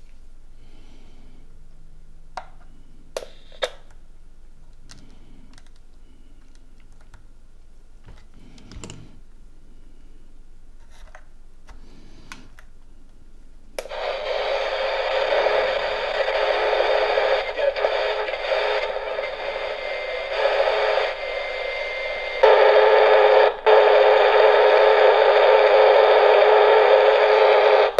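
Steepletone retro-style radio's loudspeaker hissing with static, switched on about halfway through and turned up louder a few seconds later, with a brief dropout, before it cuts off suddenly. Indoors the reception is swamped by noise, which the repairer blames on interference from his computer. Before it comes on, a few light clicks of handling.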